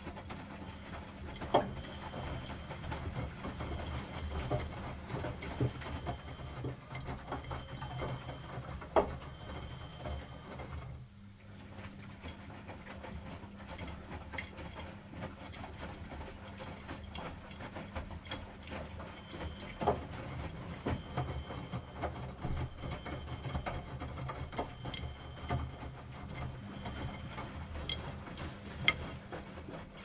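Miele W Classic front-loading washing machine in its wash phase, the drum tumbling wet laundry over a steady motor hum. The drum stops for a moment about a third of the way through, then turns again. A few sharp clicks stand out.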